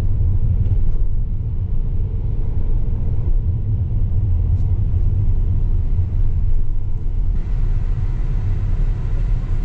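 Steady low road rumble inside the cabin of a moving Volkswagen car, from its tyres and engine while driving.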